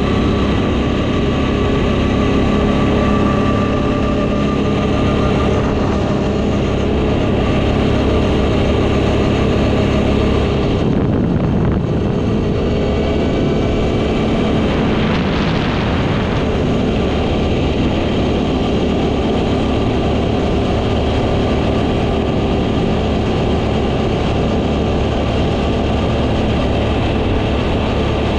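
CFMoto X8 ATV's V-twin engine running steadily, its note shifting a little in places, with a short rushing noise about fifteen seconds in.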